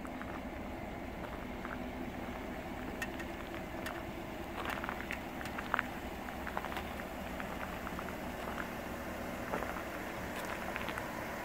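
Footsteps crunching on gravel as someone walks alongside a pickup, in short irregular clicks over a steady low hum.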